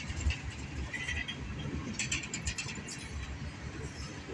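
Freight train of loaded tank cars rolling past slowly, a steady low rumble with a cluster of wheel clicks about two seconds in.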